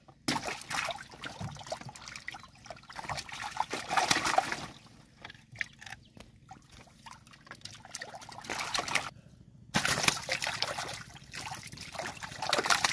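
Water splashing, sloshing and trickling in irregular spells: a busy spell in the first few seconds, then quieter, then another that starts abruptly near ten seconds in.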